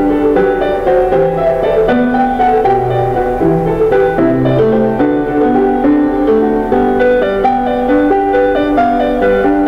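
Background music: a piano piece, played steadily throughout.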